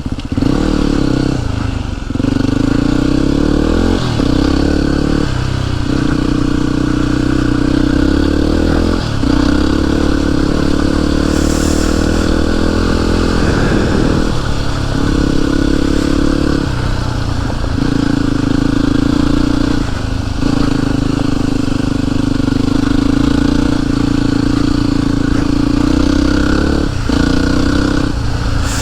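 Yamaha WR motorcycle engine running under way, its pitch rising and falling with the throttle and dropping away briefly every few seconds before picking up again.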